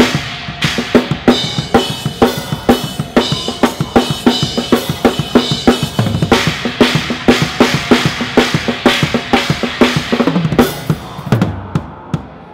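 Live rock drum kit played hard and fast, with a rapid run of bass drum and snare hits and cymbal crashes. It is heard close up on the kit and thins out slightly near the end.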